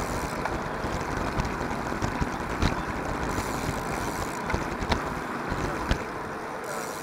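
Wind rushing over the microphone of a camera on a moving road bicycle, with tyre and road rumble and a few scattered small clicks and rattles.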